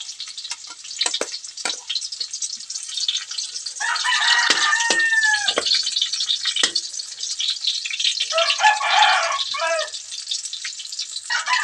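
A rooster crowing three times: about four seconds in, about eight seconds in, and again near the end. Underneath, garlic and onion sizzle in oil in a wok, with short scrapes and clicks of a spatula stirring against the pan.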